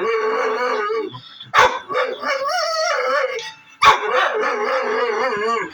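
Dog barking and howling: three times a sharp bark runs straight into a drawn-out, wavering howl, the middle one rising and falling in pitch.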